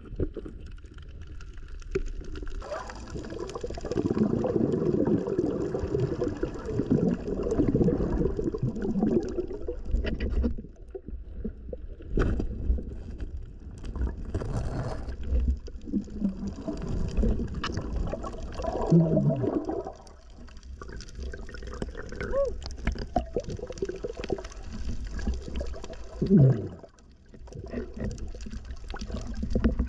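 Muffled underwater gurgling and bubbling, heard with the microphone submerged. It comes in uneven surges, the longest and loudest in the first ten seconds.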